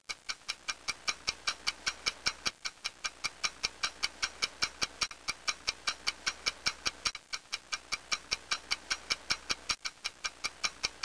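Rapid, even, clock-like ticking, about four to five ticks a second.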